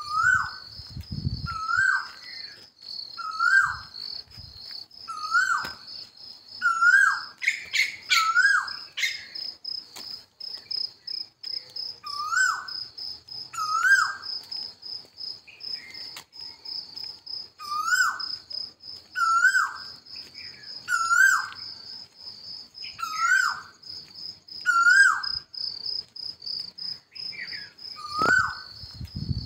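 An insect trills steadily with a fast pulse. Over it a bird repeats a short whistled note that rises and drops, mostly in pairs, about every two seconds; these are the loudest sounds. There are a couple of low thumps near the start and end.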